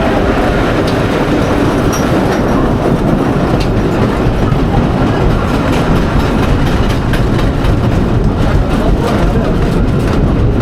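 Wooden roller coaster train running on its track, a loud steady rumbling rush with clattering wheels that clatter more often in the second half.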